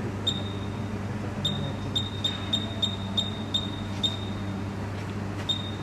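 Short, high electronic beeps from the spot welder's control-panel keypad as the weld time and current settings are keyed in: about ten in an irregular run, fastest in the middle. A steady low electrical hum runs underneath.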